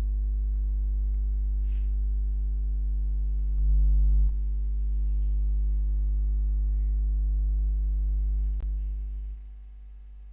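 Steady electrical mains hum picked up by the recording's microphone, a low buzz with a stack of overtones. It swells briefly about four seconds in, there is a single click near the end, and then the hum drops to a much lower level.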